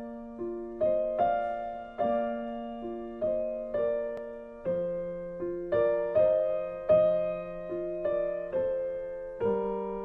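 Background music: slow, gentle piano playing a melody over chords, each note fading after it is struck.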